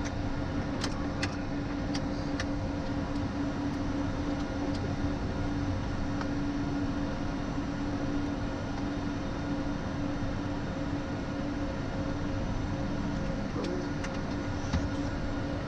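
Both jet engines of a business jet idling just after start, heard inside the cockpit: a steady hum with a constant tone. A few light clicks sound about one to two seconds in.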